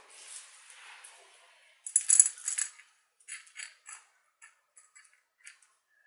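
Small white pebbles clattering together in a gloved hand, with a burst of rattling about two seconds in. After that come single clicks as the pebbles are set one at a time onto the potting soil around a succulent.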